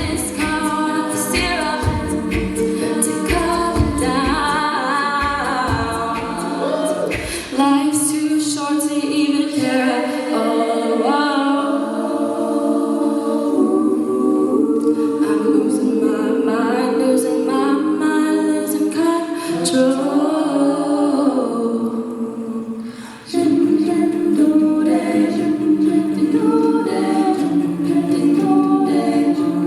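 Treble-voice a cappella group singing layered harmonies, with a beatboxed bass-drum pulse that stops about seven seconds in. Shortly before the end the voices drop away for a moment, then come back fuller.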